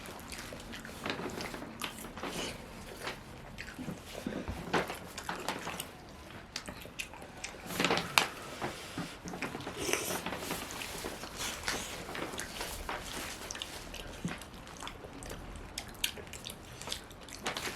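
Close-miked eating of salmon and rice: wet chewing, lip smacks and irregular small clicks, with now and then a louder smack.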